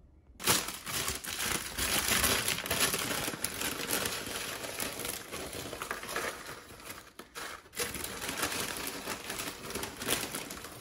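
Aluminium foil and plastic wrapping crinkling and rustling as wrapped food is handled and pushed into an insulated lunch bag. It starts about half a second in and carries on, with a brief lull a little past the middle.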